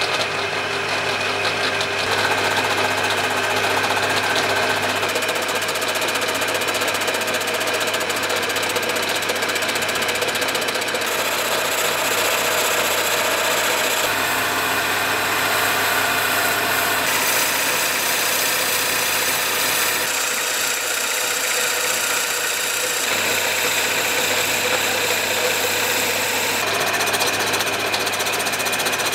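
A lathe's motor runs steadily with a low hum while a cutting tool turns a wooden handle blank, the cut adding a dense hiss. The sound's character shifts every few seconds as the cut changes.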